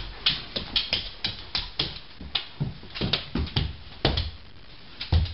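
Irregular taps and thumps, about two or three a second, of a large dog's paws and claws hitting a hardwood floor as it plays.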